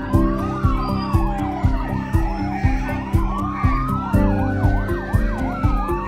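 A siren wailing slowly up and down, switching to a quicker yelp about two-thirds of the way through, over music with a thumping beat about twice a second.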